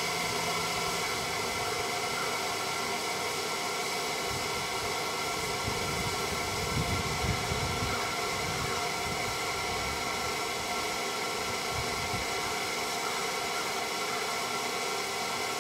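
Electric blower fan pushing air into a homemade wood gasifier, running with a steady whirring hiss and several constant hum tones. Wind gusts rumble on the microphone around the middle.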